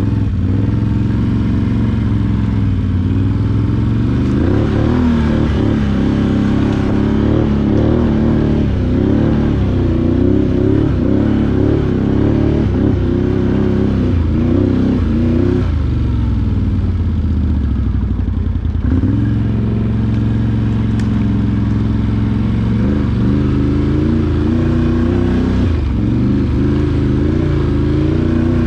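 ATV engine running under a rider's throttle, steady at first, then rising and falling in pitch over and over as the gas is worked, with a steadier stretch about two-thirds of the way through.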